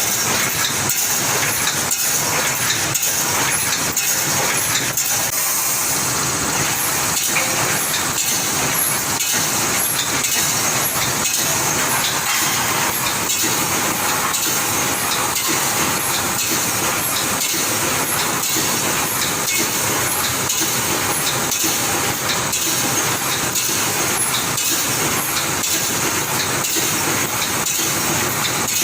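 Automatic wire mesh welding machine running: a steady mechanical clatter of metal clicks and knocks, with a regular faint high tick repeating through most of it.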